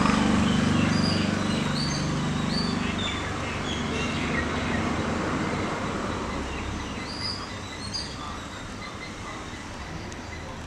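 Outdoor ambience: a low engine hum from passing traffic or a train that fades over the first few seconds, with short bird chirps now and then.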